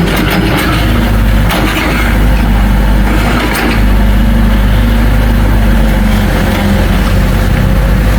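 Heavy diesel engine of earthmoving machinery running steadily, with a few short metallic knocks.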